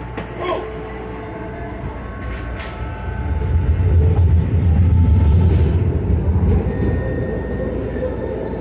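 Interior rumble of a SEPTA subway-surface trolley car, a Kawasaki light rail vehicle, running on the rails; the low rumble swells about three seconds in and eases off near the end.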